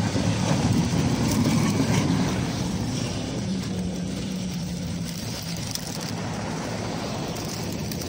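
Tram running past, a steady low rumble that is loudest in the first few seconds and eases off, with a low hum in the middle.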